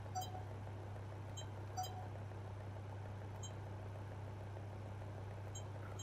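Two short soft blips, one near the start and one about two seconds in, as the Sony HDR-CX240E camcorder's menu is operated, over a steady low hum.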